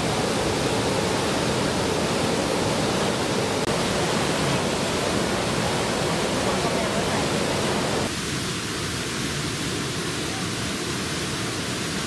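Steady rush of water spilling over small cascades into a pool. About eight seconds in it changes abruptly to a slightly quieter rush.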